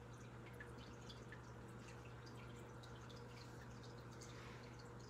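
Near silence: room tone with a low steady hum and faint, irregular tiny clicks and ticks scattered throughout.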